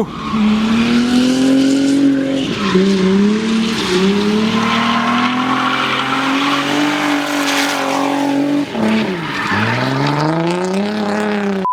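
Twin-turbo Nissan 350Z V6 held high in the revs through a drift, with tyres squealing. The engine pitch dips briefly about two and a half seconds in, falls away near nine seconds, then revs back up.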